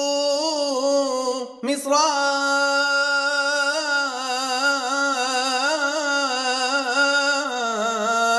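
A man chanting Hebrew Torah cantillation in the Jerusalem (Yerushalmi) tradition, drawing a single word out into a long, wavering melisma, with a brief break for breath about one and a half seconds in.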